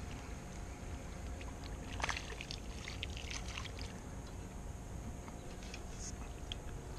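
A hooked crappie splashing at the surface as it is reeled in to a small boat, with a cluster of short splashes and clicks about two to four seconds in, over a steady low rumble.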